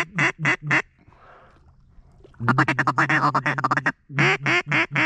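Duck call blown close by: a few loud quacks at the start, a rapid feeding chatter about two and a half seconds in, then another run of about five quacks near the end.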